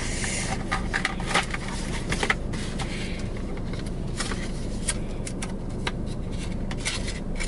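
Phone case packaging being opened and handled by hand: irregular crinkling, rustling and small clicks of paper and plastic, over a steady low rumble inside the car.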